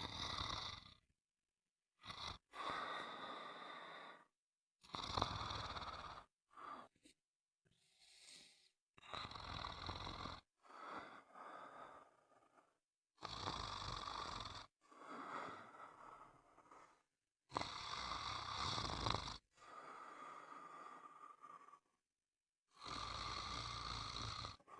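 Snoring: a run of about ten noisy snores, each one to two seconds long, with short dead-silent gaps between them.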